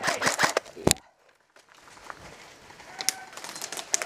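Airsoft electric gun firing full-auto, a rapid string of shots that stops about a second in. After it come faint outdoor background noise and a couple of scattered clicks.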